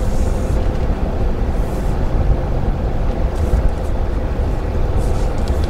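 Steady low engine and road rumble heard inside the cabin of a moving 2013 Daihatsu Move Custom RS kei car, with a faint steady hum over it and a light hiss that swells a few times.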